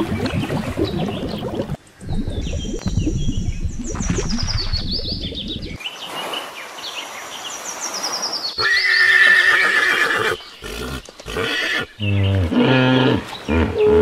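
A string of different animal calls, changing every few seconds: falling high chirps in the first half, a loud high call about nine seconds in, and deep calls in short repeated pulses near the end.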